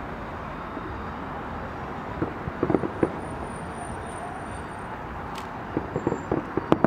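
Distant fireworks bangs and pops in two quick clusters, one about two and a half seconds in and another near the end, over a steady rumble of city traffic.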